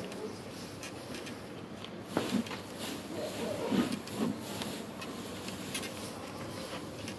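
Hands scooping and turning a dry feed mix of chopped straw, bran and grain in a trough: a steady rustle and scrunch of crackly chaff. A few short pitched calls stand out between about two and four seconds in.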